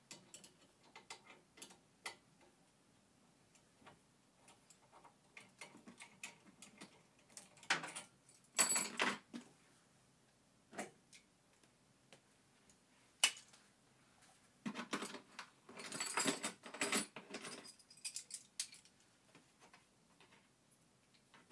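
Hand work on a car's plastic cowl air-intake grille under the bonnet: scattered clicks and knocks of plastic and tool, with two longer rattling, scraping spells, one a little over a third of the way in and one past the middle.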